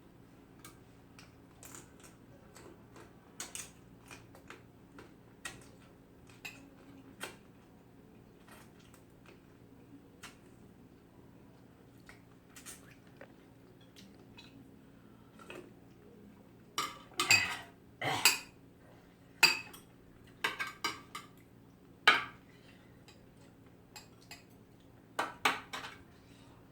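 Eating utensils clinking and scraping against bowls and dishes during a meal: scattered light taps, then a louder run of clatters in the second half.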